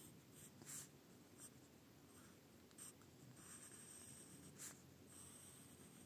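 Faint scratching of an Apsara Platinum graphite pencil drawing on paper: several short strokes, then a longer drawn stroke in the second half.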